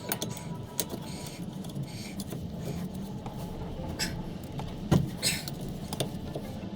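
Scattered clicks and knocks of hand-tool work on a car, the loudest knock about five seconds in, over a steady low hum.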